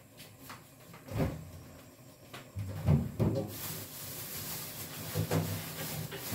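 Scattered knocks and thumps of someone handling things in a kitchen, cupboard doors among them. A steady hiss and low hum set in about halfway through.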